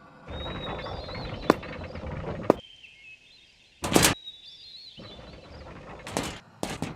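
Birds chirping over an outdoor background, broken by several short, sharp bursts like hits or whooshes. The loudest burst comes about four seconds in.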